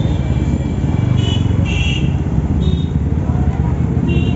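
Motorcycle engine running at low speed in slow street traffic: a steady low rumble. Several short high-pitched tones sound over it, about a second in, near two seconds, near three seconds and again near the end.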